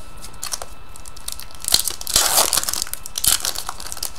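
Foil wrapper of a 2012-13 Fleer Retro hockey card pack being torn open and crinkled, in several crackling bursts, loudest about two seconds in.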